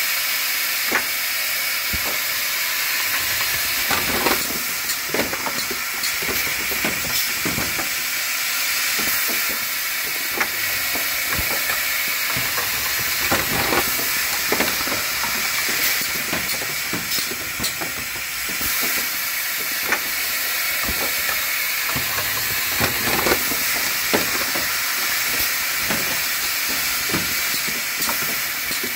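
Pneumatic pick-and-place machine for die-cut tape running, with a steady high hiss and irregular mechanical clicks and knocks as its actuators and slides move.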